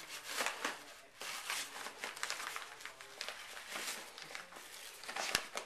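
Foil gift bag and tissue paper crinkling and rustling in irregular bursts as a dog tugs and rips at them with its mouth, with one sharp knock about five seconds in.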